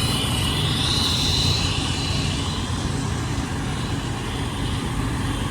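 Diesel engine of a fire truck running with a steady low rumble. A brief faint high-pitched sound comes about a second in.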